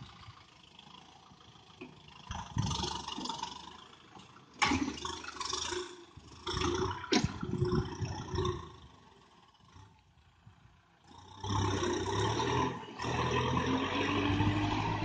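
Kubota tractor's diesel engine pulling a disc plough through dry ground. It is faint and uneven at first, with a couple of sharp knocks, then runs steady and louder for the last few seconds.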